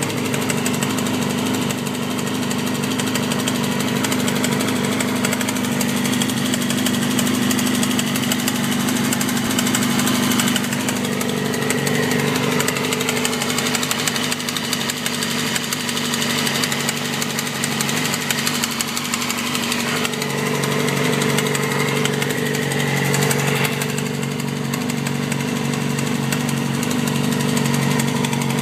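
2007 Yamaha R6's inline-four engine idling steadily, with a ticking over the engine note that is pretty loud; the owner suspects the cam chain tensioner or low oil.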